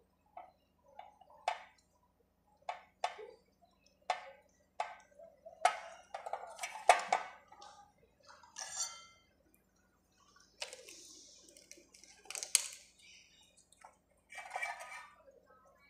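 Irregular clicks and taps from handling a power amplifier circuit board and tools during a transistor replacement, with a few short scraping or rustling stretches in the second half.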